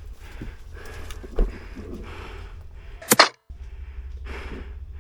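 Airsoft gunfire: two sharp cracks in quick succession about three seconds in, after a smaller knock a second or so earlier. The sound cuts out completely for a moment right after the cracks.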